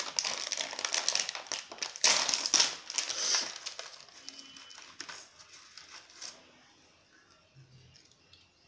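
A plastic chip packet crinkling as hands rummage in it and pull out a chip. It is loud for the first three and a half seconds, then fades to a few small rustles.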